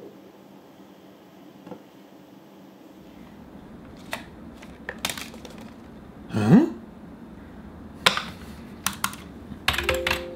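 Scattered clicks and knocks of a smartphone being handled, then key clicks of typing on a computer keyboard near the end. A short rising sound a little past halfway is the loudest event.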